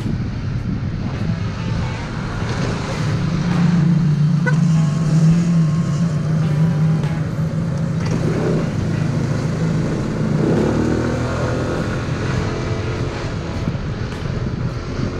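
Yamaha NMax scooter's single-cylinder engine running steadily while riding through traffic, heard from the rider's seat, with passing car traffic around it.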